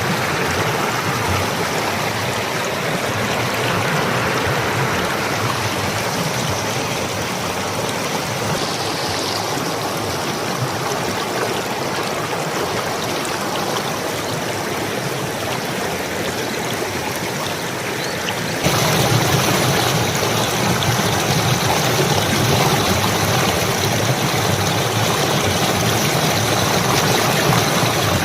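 Water of a small stream babbling and gurgling over stones, a steady rushing noise. About two-thirds of the way through it suddenly becomes louder and brighter.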